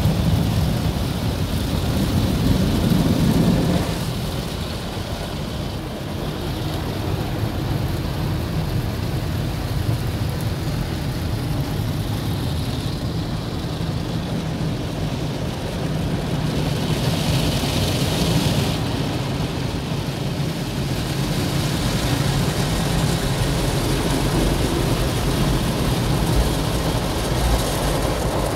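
Automatic car wash heard from inside the car's cabin: water spraying and pattering on the windscreen and body over a steady low rumble. About two-thirds of the way through, a brief louder hiss.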